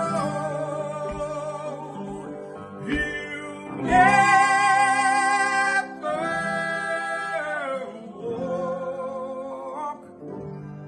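Lead singing with a second voice in harmony over acoustic guitar and piano. The singing swells to its loudest on a held note about four seconds in.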